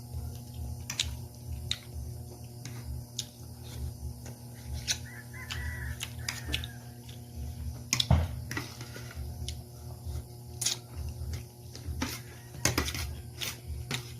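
Someone eating: chewing, with irregular light clicks of utensils on a plate and a louder knock about eight seconds in, over a steady low hum.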